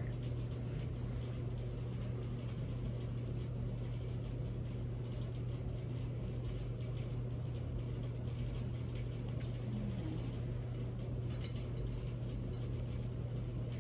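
Room tone: a steady low hum with faint background hiss, unchanging throughout.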